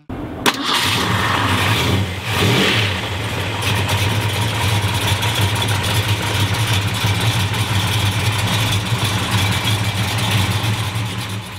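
Car engine running with a steady deep rumble, cutting in abruptly just after the start.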